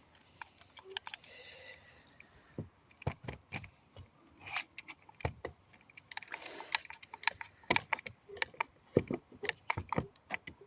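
Pallet planks and tools being handled on a wooden bench: scattered light clicks and knocks at uneven intervals, with a few sharper knocks in the second half.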